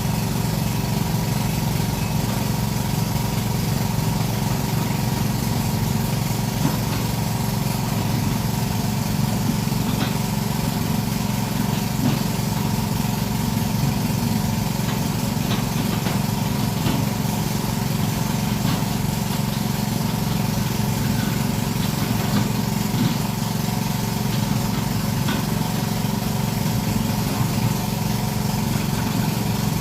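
Sumitomo SH210-5 excavator's diesel engine running steadily at an unchanging speed.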